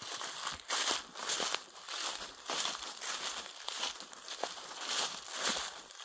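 Footsteps walking over the forest floor at a steady pace, about two steps a second.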